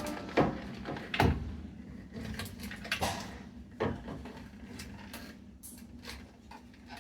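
Plastic knocks and clicks as wire-harness plugs are worked loose from a washing machine's control board, a handful of separate sharp knocks, the loudest about a second in, then fainter ones.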